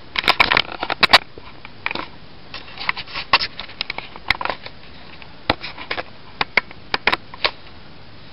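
Plastic clicks and snaps of a Bakugan figure's hinged parts being handled and folded open, a quick flurry at first and then scattered single clicks.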